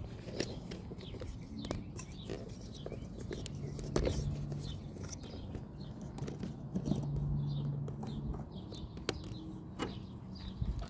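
Scattered clicks and knocks of a brake master cylinder and hand tools being handled, with birds chirping in the background. A low hum comes and goes twice.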